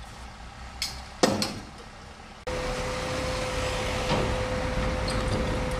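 Two sharp knocks in the first half. Then, from about halfway, a steady, louder engine hum with a constant whine, the mobile crane running as it holds a heavy locomotive section on its hook.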